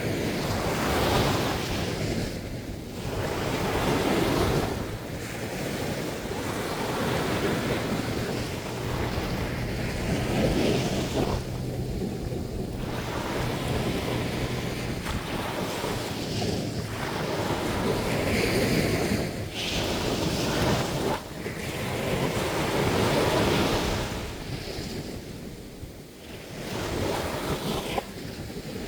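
Sea waves breaking and washing up on a sandy beach, a wash that swells and ebbs every few seconds, with wind buffeting the microphone.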